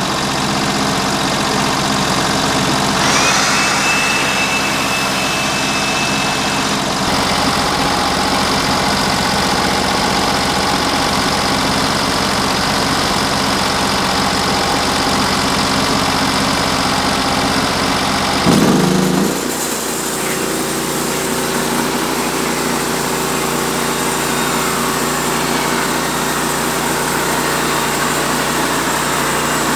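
Portable sawmill running on cypress, its engine going steadily. A thin high whine shows for a few seconds about three seconds in, and just past halfway the engine note rises briefly and then settles into a different steady pitch.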